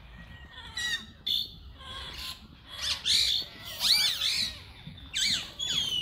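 Birds calling: a string of short calls that rise and fall in pitch, the loudest in the middle and a pair more near the end.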